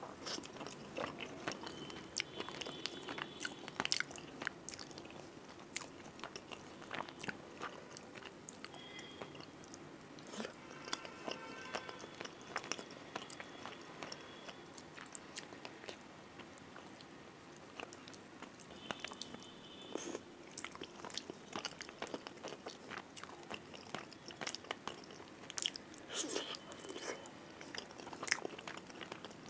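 Close-miked chewing of a handful of rice and fish curry, with many short wet clicks and smacks of the mouth. Now and then the fingers squelch as they mix rice into the curry.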